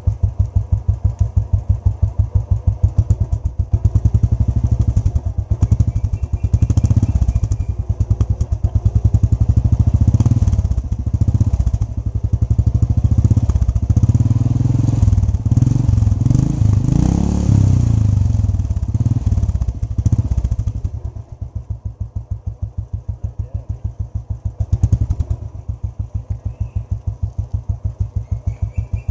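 Royal Enfield Bullet's single-cylinder engine running through a chrome open silencer, with an even thump of firing pulses. It is blipped up and down repeatedly for the first two-thirds, then drops back to a steady idle with one more blip near the end.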